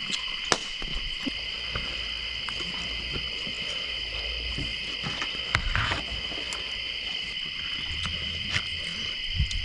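Steady high-pitched chorus of crickets trilling without a break, with a few scattered soft clicks and knocks over it.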